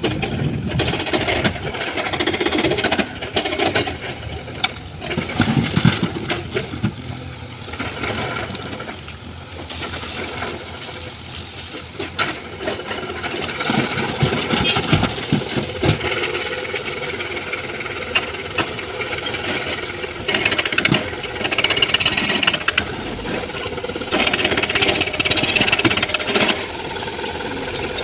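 Excavator's diesel engine working under load while rocks clatter and knock into a steel dump-truck bed, with many irregular knocks and louder stretches of clatter throughout.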